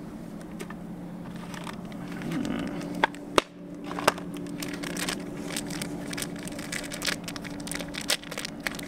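Handling noise: faint crinkling and crackling with a few sharp clicks about three and four seconds in, over a steady low hum.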